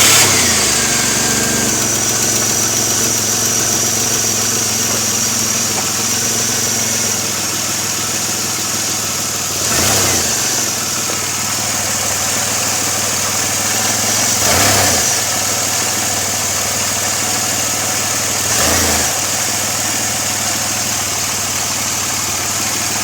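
2002 Pontiac Firebird's 3.8-litre V6 idling just after it fires, with a steady high hiss over the engine note and three short throttle blips about ten, fifteen and nineteen seconds in. The engine has a vacuum leak.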